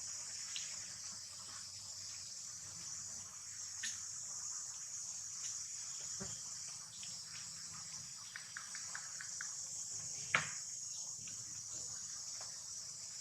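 Steady high-pitched insect chorus, like crickets, with scattered faint clicks and one sharper tap about ten seconds in.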